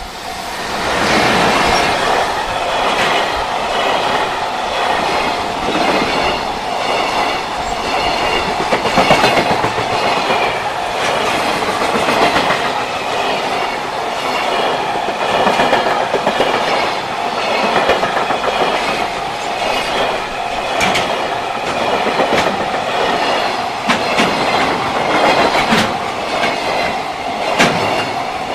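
Long freight train passing close by at speed, its wagon wheels clacking steadily over the rail joints, with a level-crossing warning bell ringing.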